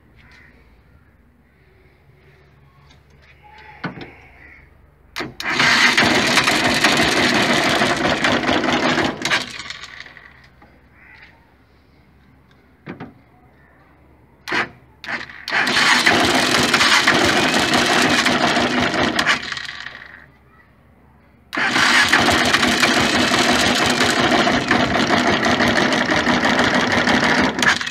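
A 200cc engine turned over and run in three loud bursts of about four to six seconds each, every one starting suddenly and dying away, with quiet gaps and a few short clicks between them.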